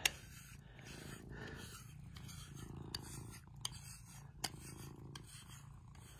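Tabby cat purring while being brushed, with the soft scratching of grooming-brush bristles through its fur and a few sharp clicks.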